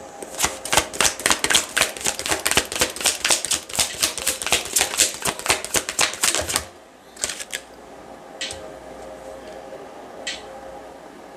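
Tarot deck being shuffled by hand: a fast run of crisp card slaps, about five a second, that stops after about six and a half seconds, followed by a few single card taps as cards are drawn and laid down.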